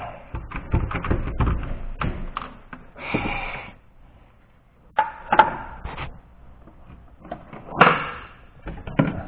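Hand tools, a socket on an extension and ratchet, clicking, knocking and clanking against metal engine parts under the hood of a 6.0L Powerstroke diesel. The knocks are irregular; one about five seconds in rings briefly, and the loudest comes near the end.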